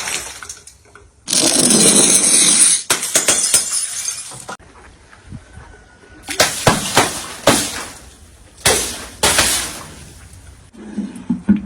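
Glass breaking and shattering. A long crash comes about a second in, followed by crackling fragments. After a quiet stretch, a run of sharp breaking cracks follows in the second half.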